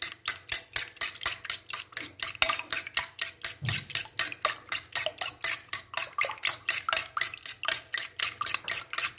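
Steel spoon beating milk and eggs in a stainless steel bowl, clinking against the bowl in a fast, even rhythm.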